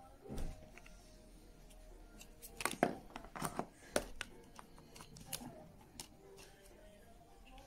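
Irregular clicks and knocks of hands handling small parts and tools, several in quick succession in the middle, with a faint steady hum beneath.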